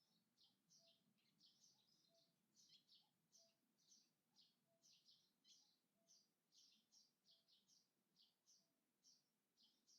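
Faint birdsong: small birds chirping rapidly, several short high chirps a second, with a soft low note repeating about once a second.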